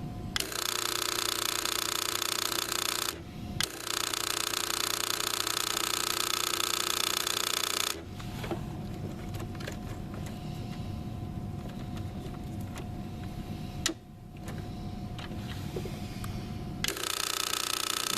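Solis Master 5000 espresso machine's water pump buzzing as it pressurizes the boiler circuit. It drops out briefly about three seconds in, stops about eight seconds in leaving a quieter low hum, and starts again near the end.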